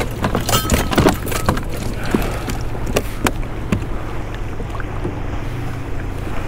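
Knocks and clicks of gear being handled on a fishing kayak, thickest in the first few seconds, over a steady low rumble.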